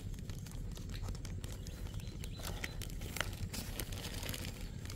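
Close scratchy handling noise with scattered crackles and clicks, as a bare forearm moves across the camera and brushes against it, over a steady low rumble.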